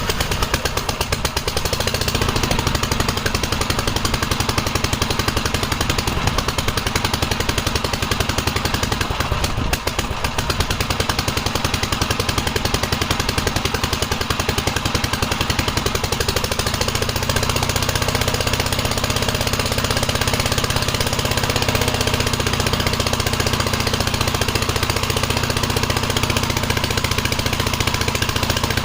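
Vintage Gravely walk-behind tractor engine running loud and fast-pulsing through a muffler with no baffle, on an engine with no governor. Its low note changes about 17 seconds in.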